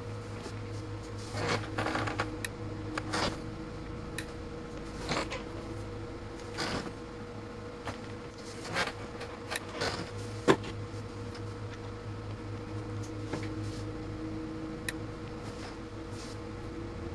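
Clicks and rustles from handling a B&K Precision 2703C handheld multimeter: its rotary range selector being turned and its test leads being moved, with one sharp click about ten seconds in. Under it runs a steady low electrical hum from the bench equipment.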